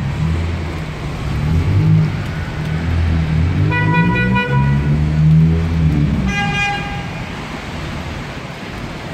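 Traffic running on a wet city street, with engines rumbling. A vehicle horn toots for just under a second about four seconds in, and a higher-pitched horn sounds briefly a couple of seconds later.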